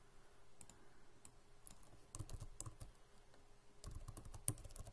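Typing on a computer keyboard: faint, scattered key clicks, with quicker runs of keystrokes about two seconds in and again near the end.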